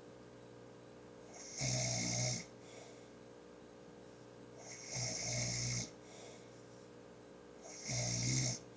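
A man snoring in his sleep: three loud snores about three seconds apart, each lasting under a second.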